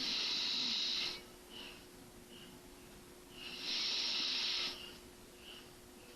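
A sleeping man snoring: two loud, breathy snores, each about a second long, the second coming about three and a half seconds after the first, with quieter breaths between.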